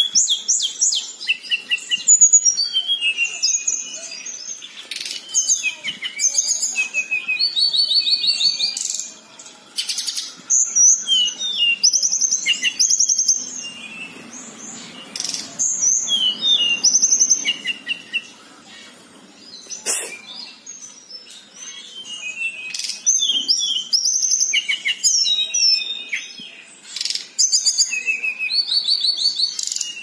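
Local tledekan songbird singing a long rolling song of fast, high, trilled phrases one after another with brief pauses. This is the kind of 'long roll' played as a lure to coax caged birds that have gone quiet into singing. A few sharp clicks come in between, one loud one about two-thirds of the way through.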